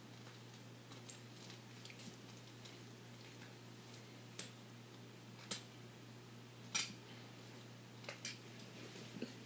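A handful of faint, scattered clicks and light taps over a low steady hum, the loudest click about two-thirds of the way in.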